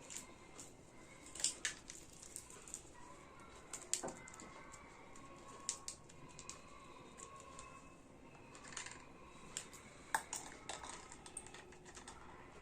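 Pieces of a miniature plastic toy kitchen set being handled: irregular light clicks and taps, with a few sharper knocks.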